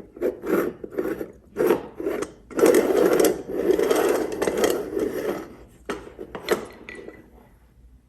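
Repeated short scraping strokes, merging about two and a half seconds in into a steadier run of scraping that lasts about three seconds, then a few last strokes before it fades out near the end.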